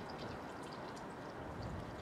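Steady outdoor background hiss with a few small, high ticks scattered through it; no train is passing.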